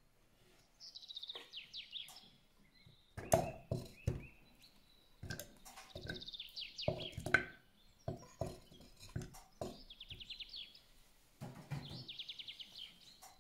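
A small bird chirping in quick trills four times, over a run of sharp knocks and clatters, which are the loudest sounds.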